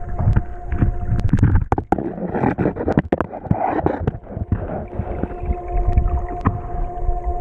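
River current heard from an underwater camera: a low, muffled rumble with scattered sharp clicks and knocks, swelling into a louder gurgling rush for a couple of seconds in the middle, over a faint steady hum.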